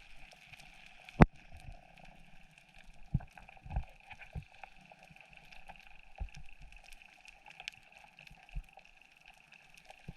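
Underwater ambience recorded on a diving camera: a faint steady hiss with scattered clicks and low thumps, the sharpest a single click about a second in.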